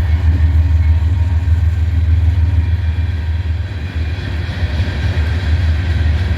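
Diesel switcher locomotive's engine running with a steady low rumble.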